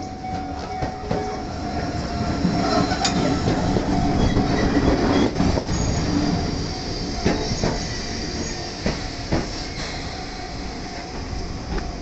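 Enoshima Electric Railway (Enoden) train pulling into the station, its wheels clicking over the rail joints and squealing briefly as it brakes. It is loudest about four to six seconds in, then settles as the train stops.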